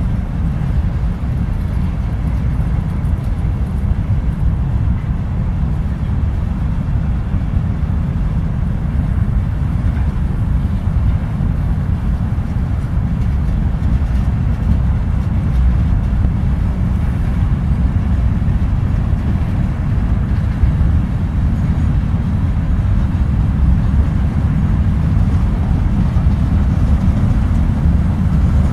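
Freight train's covered hopper cars rolling past at close range: a steady, loud, low rumble of steel wheels on the rails that does not change.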